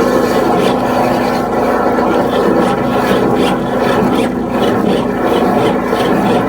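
Engine-driven high-pressure drain-jetting machine running steadily, with a rasping, rushing noise of the jet working in the pipe. It cuts off suddenly near the end.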